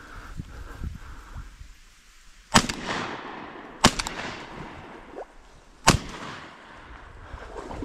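Three shotgun shots fired at flying ducks, the second about a second and a half after the first and the third about two seconds later, each followed by a fading echo.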